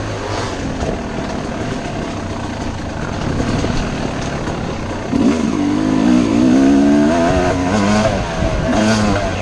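Yamaha YZ250 two-stroke dirt bike engine revving up and down under throttle. It gets louder about five seconds in as the revs climb, and falls and rises again near the end.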